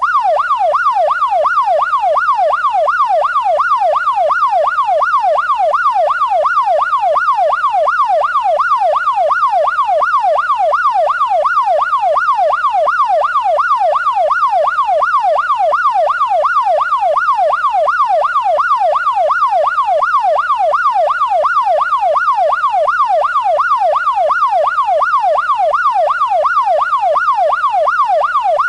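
Police siren in a fast yelp: one loud tone sweeping rapidly up and down in pitch, about two sweeps a second, with no change in rhythm or level.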